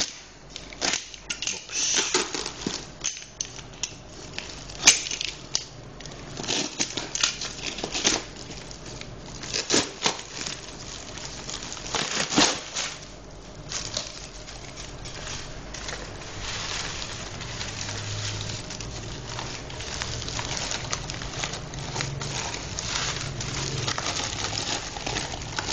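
Paper and plastic parcel wrapping being torn open, crinkled and crumpled by hand, with irregular sharp crackles and rustles.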